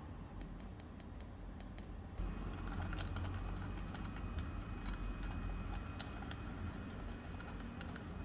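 Tiny metal spoon stirring in a miniature glass bowl: a quick, irregular run of light clicks and scrapes against the glass, busier from about two seconds in.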